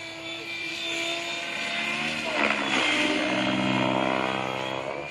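Gaui X7 electric RC helicopter in flight: a steady whine from its motor and rotor blades. About two and a half seconds in it gets louder and its pitch dips a little.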